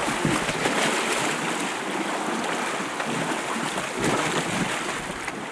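Steady rush and splash of sea water churning in the foaming wake behind a balsa-log raft, with wind noise on the microphone.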